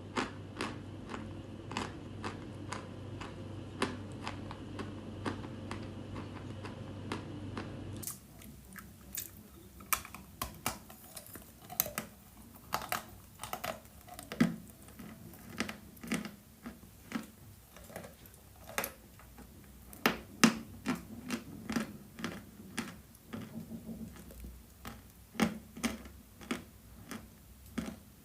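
Close-miked crunching of edible chalk being bitten and chewed: a quick run of sharp, crisp crunches. For the first eight seconds a low steady hum sits beneath them. The sound then changes abruptly to a cleaner recording with sparser, louder crunches.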